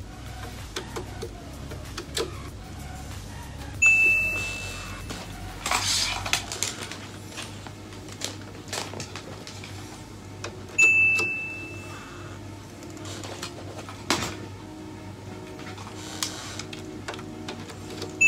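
Small clicks and knocks of a USB wifi dongle and cables being handled and plugged into the rear ports of a Dell OptiPlex desktop. Over them a high single-tone ding sounds three times, about seven seconds apart, each fading out over about a second.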